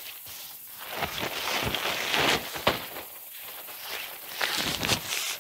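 Nylon fabric of a pop-up privacy tent rustling and swishing as its flat-folded spring-wire frame is handled and worked open, with one sharp click about two and a half seconds in.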